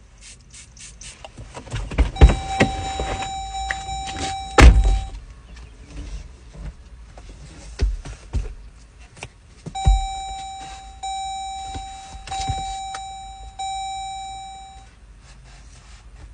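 Thumps and knocks inside a vehicle cabin as a child jumps and dances between the rear seats. The loudest knocks come about two, four and a half and ten seconds in. A steady high tone sounds twice, for about three seconds and then for about five seconds with short breaks.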